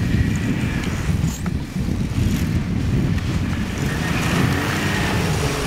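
Polaris snowmobile driven through tight turns, its engine running under throttle with a steady, rough, low sound.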